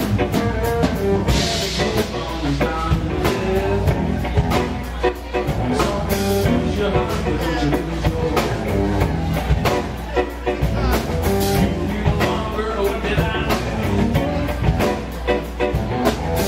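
Live blues band playing: electric guitar over a rhythm section, with a steady beat.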